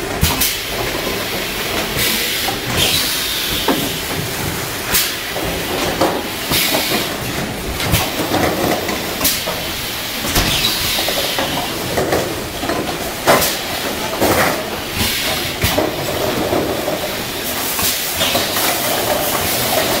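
Pneumatic piston filling and screw-capping machine running. Short bursts of compressed-air hiss come every couple of seconds, over a steady mechanical clatter with sharp clicks.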